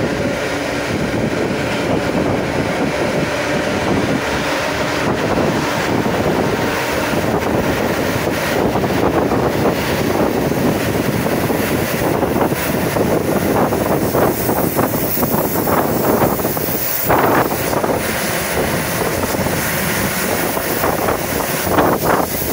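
Suburban electric train running, heard from inside the carriage at the window: a steady rumble with wind noise, and the clack of the wheels over rail joints, more frequent in the second half.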